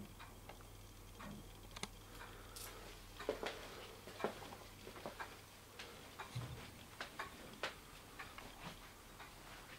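Faint, irregular clicks and taps of a camcorder being handled and moved around a room, with a brief low thump about two-thirds of the way in, over a steady low electrical hum.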